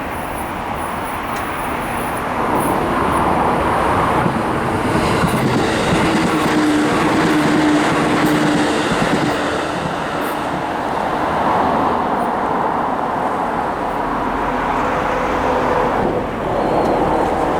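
A train running past a level crossing: a loud, continuous rush of wheels on rail that swells and eases twice. A humming tone holds for a few seconds in the middle.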